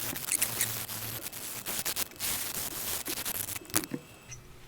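Wet sandpaper rubbing rust off a metal carburetor part, in irregular scraping strokes that stop a little under four seconds in with a sharp click.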